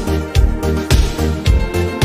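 Background music with a steady beat and a heavy bass, about two beats a second.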